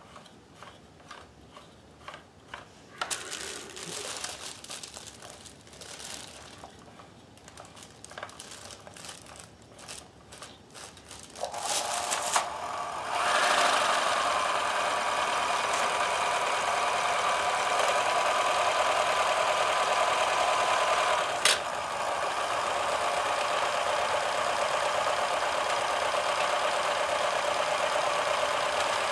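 Vintage Kenmore 158.1030 sewing machine, freshly oiled: first a slow scatter of light clicks and ticks from its mechanism, then, about eleven seconds in, its motor starts and it runs steadily at speed with a steady whine. One sharp click comes about two-thirds of the way through.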